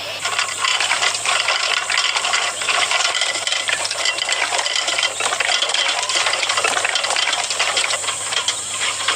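Steady, busy rattling made of many small rapid clicks.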